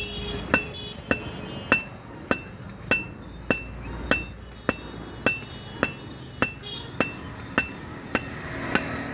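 Blacksmith's hammer striking metal on an anvil in a steady rhythm, a little under two blows a second, each blow with a short metallic ring.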